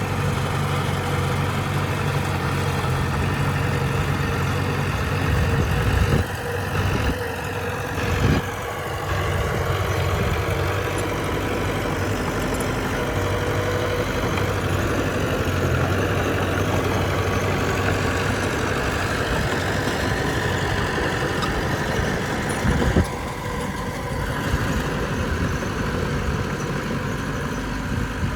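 Bulldozer's diesel engine running steadily, its note shifting a few seconds in, with a few brief knocks: one after about 6 seconds, one around 8 seconds and one near the end.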